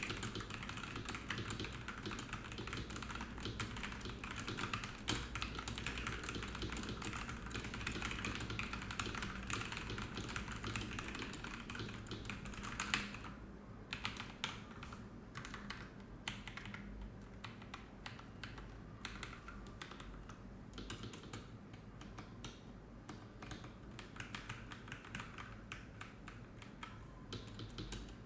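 NuPhy Halo75 mechanical keyboard being typed on: fast, continuous keystrokes for about the first half, then slower, more spaced-out key presses.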